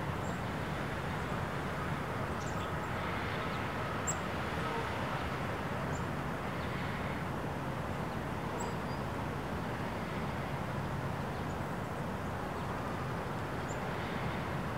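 Steady outdoor background noise with a low rumbling hum, and a few faint short high bird chirps scattered through it.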